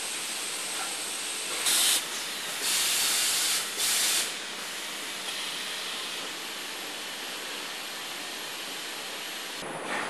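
Ball-factory machinery giving three short, loud hissing blasts in quick succession, each under a second long, over a steady background hiss.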